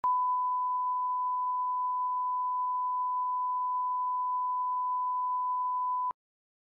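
A single electronic beep: a pure, steady tone at about 1 kHz held for about six seconds, then cutting off abruptly. It has the form of a bleep tone added over muted audio.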